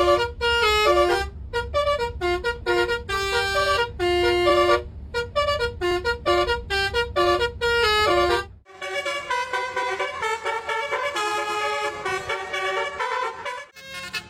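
Musical truck horn playing a tune in short, quick notes over an idling engine's low rumble. After a brief break, about two-thirds of the way in, a different tune follows with longer, overlapping notes.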